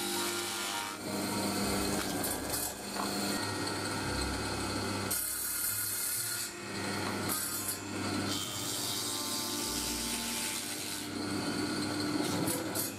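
Tenoning machine running with a steady hum, its cutters chewing into wooden kumiko strips in several louder bursts as they are pushed through to cut tenons.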